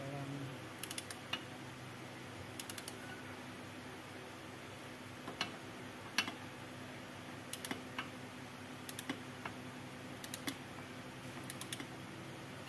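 Scattered light metallic clicks and taps from hand tools working on the lower end of a car's coil-spring shock absorber strut, some in quick runs of three or four, over a faint steady hum.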